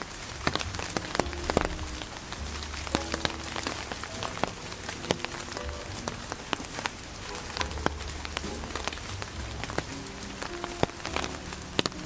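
Dense, irregular pattering of many small sharp ticks, like rain on a surface, with soft background music notes over it.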